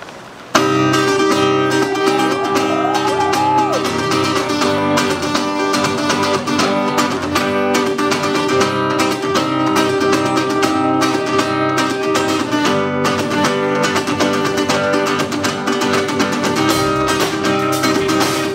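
A live band plays an instrumental intro: strummed acoustic guitar over drums, bass and electric guitar. The music comes in suddenly about half a second in.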